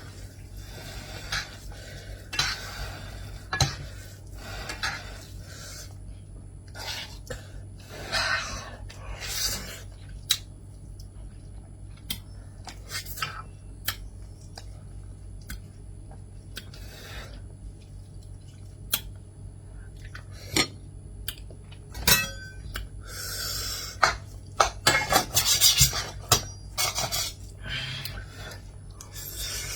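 Cutlery clinking and scraping against a dish during eating, in scattered irregular clicks and short scrapes, busier near the end, over a low steady hum.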